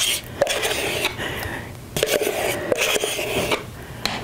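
A utensil scraping soft ricotta cheese out of a plastic tub into a mixing bowl, in two long scraping passes with a few sharp knocks.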